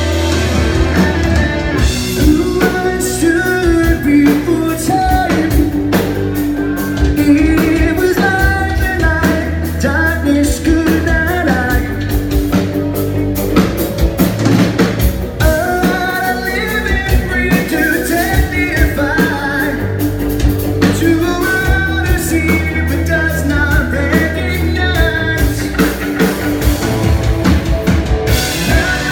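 A rock band playing live: electric guitars and drums with a lead singer, heard from the audience floor.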